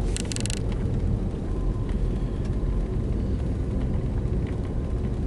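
Steady low rumble of a car heard from inside the cabin while driving, with a short rattling hiss in the first half second.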